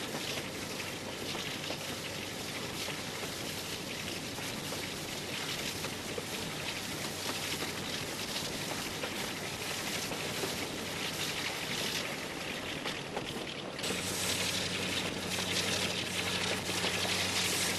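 Hymek diesel-hydraulic locomotive D7076 running under way, its Maybach MD870 diesel giving a steady low hum under a continuous rush of wind over the microphone held out of the cab window. About fourteen seconds in, the hum and the rushing both grow louder.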